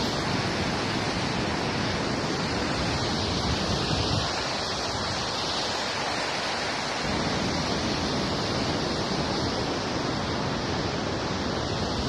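Steady rushing of white-water rapids pouring through a rocky river gorge.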